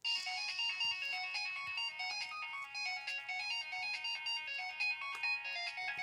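Nokia mobile phone playing a polyphonic ringtone through its small built-in loudspeaker: a quick melody of several notes at once, high and thin with no bass.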